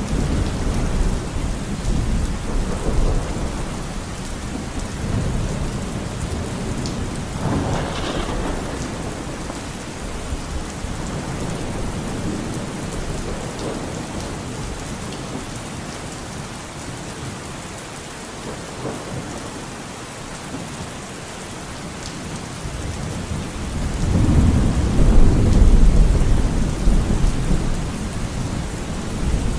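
Steady rain falling, with rolling thunder. A short sharper thunder clap comes about eight seconds in. The rumble dies down in the middle, then swells into the loudest, deep roll of thunder near the end.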